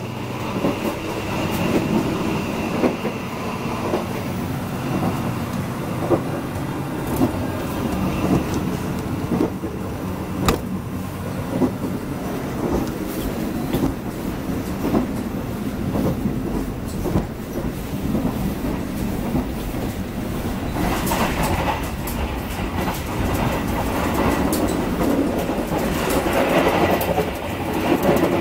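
Running noise of the Sancaka Utara passenger train heard from inside the coaches: a steady rumble of wheels on rail with frequent clicks and knocks. It grows louder over the last several seconds, toward the gangway between coaches.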